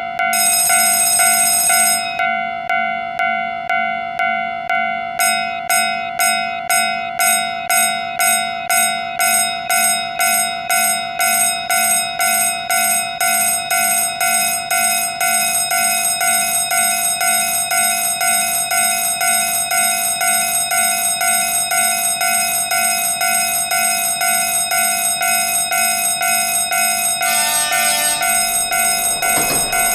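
Railway level-crossing warning bell ringing its repeated 'kan-kan' strikes, about two a second at first, then faster from about halfway through.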